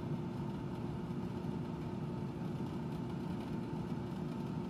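Countertop air fryer running: its fan and motor give a steady, even hum with a whir of moving air.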